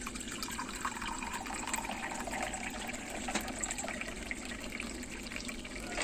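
Thin stream of water pouring steadily from an Aquaguard RO water purifier's spout into a steel pot holding eggs, filling it.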